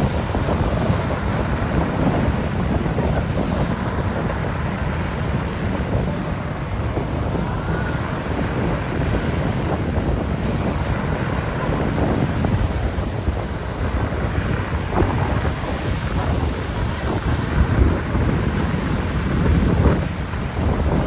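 Strong wind buffeting the microphone in uneven gusts, over the wash of choppy sea water.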